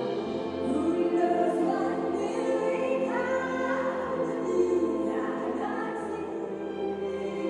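Large choir singing long, sustained phrases with orchestral accompaniment, performed live.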